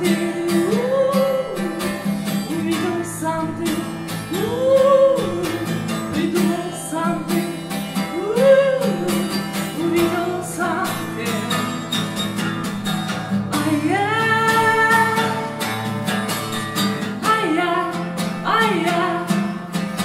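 A woman singing long, arching phrases over steady acoustic guitar strumming, with a long held note about 14 seconds in.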